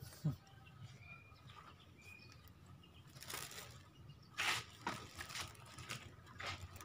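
A few faint, short, high bird chirps over quiet outdoor background, with a brief thump at the start and several short rustling, scuffing noises from about three seconds in.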